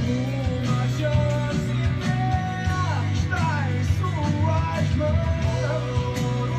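A rock song with a singing voice, electric guitar and a steady bass line.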